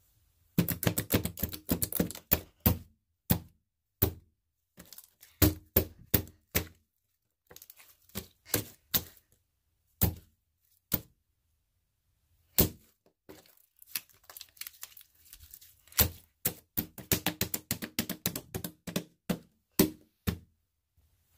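Blue slime squeezed, slapped and scrunched roughly by hand, giving quick runs of sharp pops and clicks with short pauses between handfuls.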